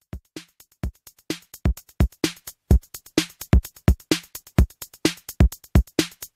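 Electronic drum-machine beat on its own, with no melody: deep kick-drum thumps and sharper higher hits, starting sparse and quiet and getting louder and busier.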